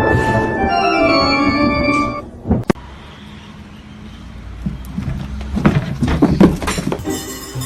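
Background music with held chords for about two seconds, then a quieter stretch with a sharp click and a few soft knocks, and music coming back near the end.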